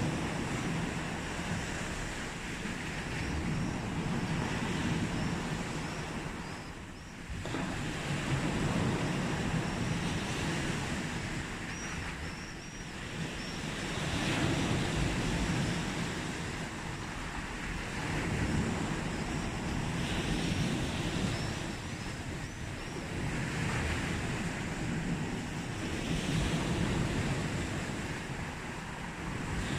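Sea waves breaking and washing onto the beach, a steady rush that swells and falls back every few seconds.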